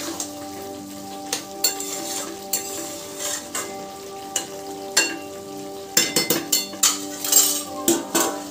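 Spatula stirring and scraping curry in a metal kadai, with the curry sizzling. Near the end comes a quick run of metal clinks and scrapes as a steel plate lid is set over the pan.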